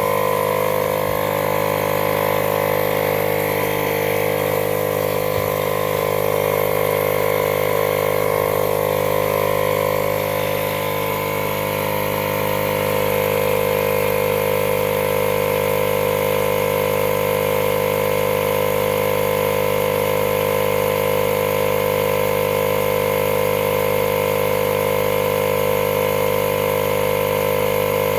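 Battery-powered Milwaukee portable air compressor running steadily with an even mechanical hum while it pumps air into a flat mower tire.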